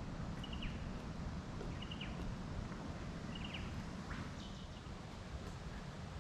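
A bird calling repeatedly, a short high call about every second and a half, three times, with a single rising call a little later, over a steady low rumble.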